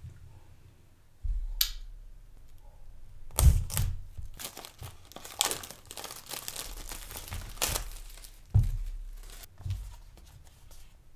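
Clear cellophane shrink wrap being torn and peeled off a small cardboard box, crinkling and crackling for several seconds. Dull knocks come from the box being handled, the loudest about three and a half seconds in.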